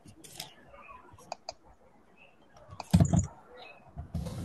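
Typing on a computer keyboard: scattered key clicks, with a louder thump about three seconds in.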